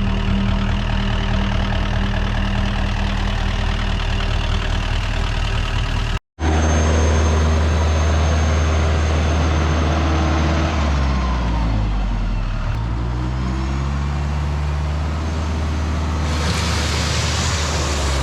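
Tractor engine running, its speed rising and falling partway through as it works. The sound cuts out for a split second about six seconds in, and a hiss joins near the end.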